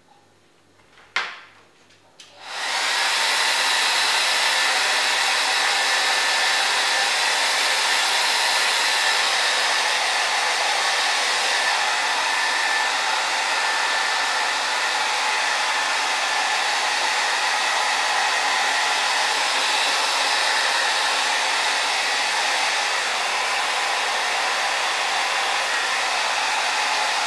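A sharp click about a second in, then a handheld hair dryer switches on and runs steadily with a loud, even blowing noise.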